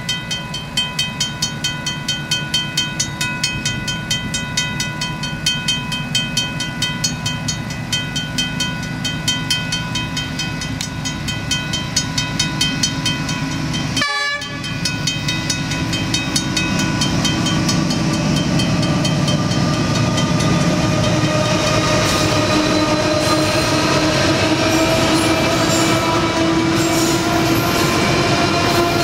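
Western Cullen Hayes mechanical level crossing bell ringing with rapid, regular strikes. In the second half a freight train's diesel locomotives approach and grow louder, their engine note slowly rising as they reach the crossing near the end.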